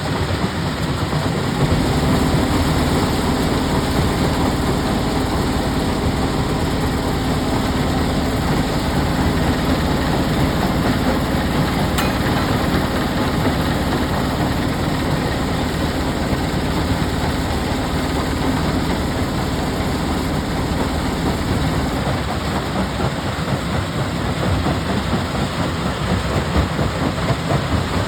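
Heavy machine engine running steadily with a dense rattling din and a low hum that drops out about two-thirds of the way through; a single sharp click is heard near the middle.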